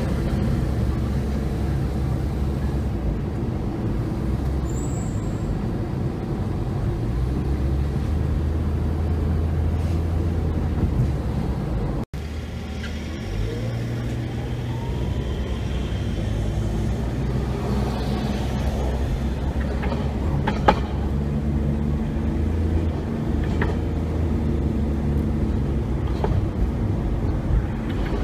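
Steady low rumble of traffic, first from a moving road vehicle. After a brief break about 12 s in, a Hankai Tramway streetcar runs past on its street track with a rising motor whine, a sharp click partway through, and passing road traffic.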